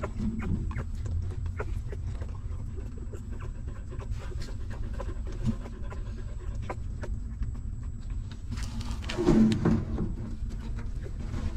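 A mother dog panting steadily, with faint rapid clicks of newborn puppies suckling. The panting grows louder for about a second around nine seconds in.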